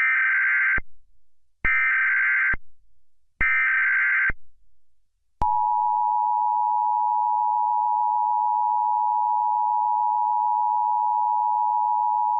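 Emergency Alert System header: three short screeching digital data tones (the SAME header bursts), each just under a second. About five and a half seconds in, the steady EAS attention tone starts and holds, announcing an emergency alert.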